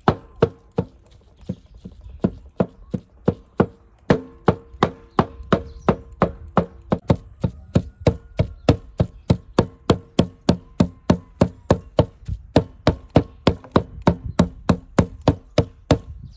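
Heavy cleaver chopping raw meat into mince on a thick wooden log-slice board: a steady run of sharp chops, about three a second.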